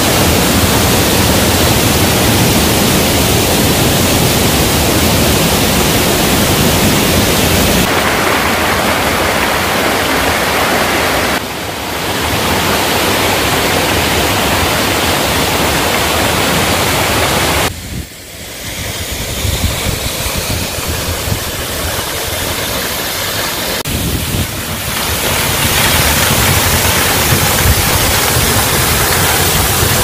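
Waterfall and cascade with falling water rushing and splashing into a plunge pool: a loud, steady rush. The loudness and tone change abruptly a few times, with a short dip a little past halfway.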